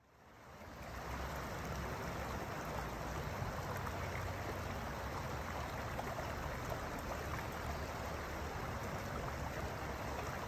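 Steady rushing of flowing stream water, fading in over about the first second.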